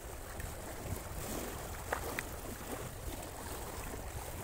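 Steady wind rumble on the microphone over the wash of choppy water, with a couple of faint clicks about two seconds in.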